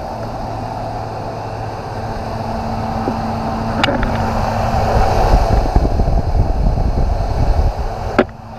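Dodge Durango's 4.7 L V8 running at idle, its engine fan driven by a freshly replaced fan clutch. The fan's air rushes across the microphone as it nears the engine bay, growing louder from about four seconds in.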